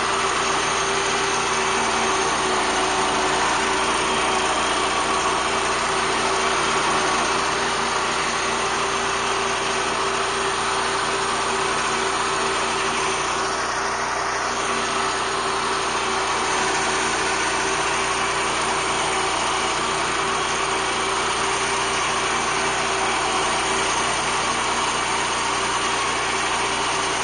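BCS walk-behind tractor's engine running steadily at working speed, driving a Zanon 40-inch finish mower through grass.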